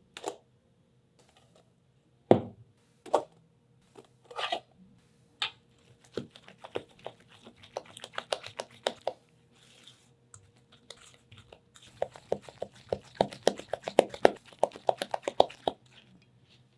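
Silicone spatula working thick cookie dough in a stainless steel mixing bowl. A few separate knocks come first, then runs of quick scraping and slapping strokes against the metal.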